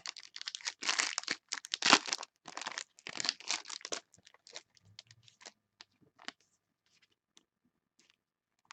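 Trading card pack being torn open, its wrapper crinkling in a run of bursts that are loudest about two seconds in. After about four seconds only a few soft ticks follow as the cards are handled.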